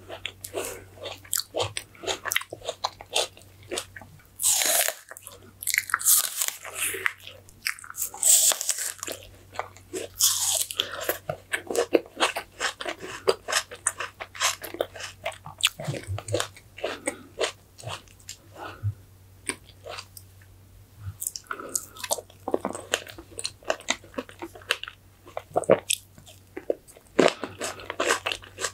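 Close-miked eating sounds: chewing a cream-topped fresh strawberry and soft whipped-cream cake, with many small wet mouth clicks and smacks.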